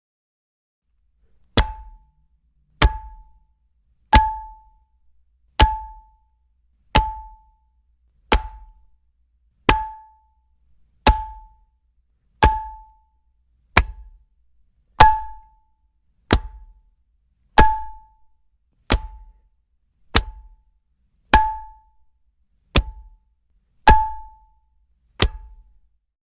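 A frying pan struck against a body again and again, about nineteen separate hits a little over a second apart. Each hit is a sharp impact with a crunch from the body and a short metallic ding ringing from the pan.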